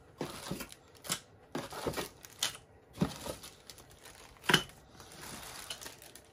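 Plastic packaging crinkling and rustling as bagged clipper guide combs are handled, in irregular bursts with a few sharp knocks, the loudest about two-thirds of the way through.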